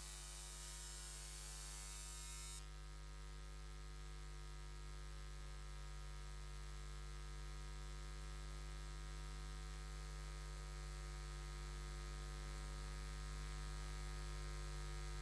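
Steady 50 Hz electrical mains hum with its overtones and a faint hiss on the audio feed, with no other sound. The high part of the hiss drops away about two and a half seconds in.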